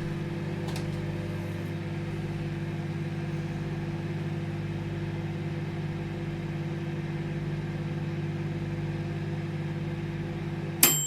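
Microwave oven running with a steady hum, then cutting off near the end with a sharp click and a bell ding that rings and fades, the timer signalling the end of the heating cycle.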